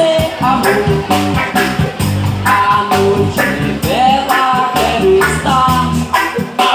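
Roots reggae band playing an instrumental passage: bass, drums and rhythm guitar keep a steady beat under a melodic lead line that slides between notes.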